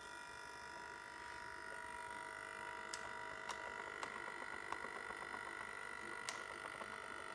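Servos of a 3D-printed robot hand holding a closed grip, giving a faint, steady whine of several tones together. Small irregular ticks come in from about three seconds in.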